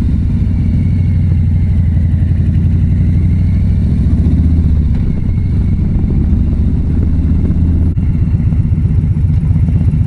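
Harley-Davidson Street Bob's Milwaukee-Eight V-twin engine running as the motorcycle is ridden, a steady low rumble of firing pulses with a short dip in level about eight seconds in.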